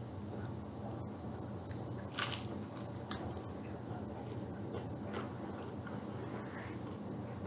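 Close-up mouth sounds of someone biting into and chewing crispy oven-fried chicken, with one loud crunchy bite about two seconds in and smaller wet chewing clicks after it.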